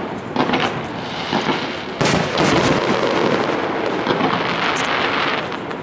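Aerial firework shells bursting overhead in a dense barrage of booms and sharp reports, with a sudden loud burst about two seconds in.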